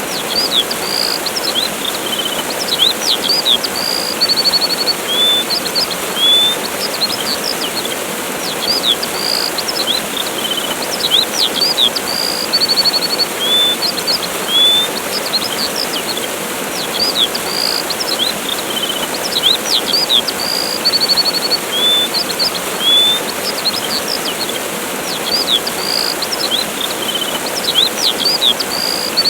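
Steady rush of falling water from a waterfall, with small birds chirping over it: short rising and falling chirps and quick trills every second or two.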